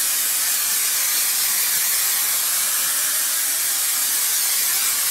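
Aerosol can of permethrin insect spray held down in one continuous, steady hiss, misting a cloth.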